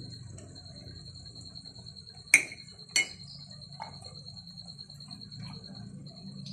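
A cricket trills steadily in the background, a fast pulsing high tone. About two and a half and three seconds in come two sharp clinks of a spoon against the metal cooking pot, with a fainter tap shortly after.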